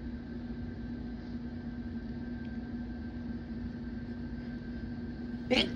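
Steady low room hum with a faint constant tone. Near the very end a person's sneeze bursts out suddenly and loudly.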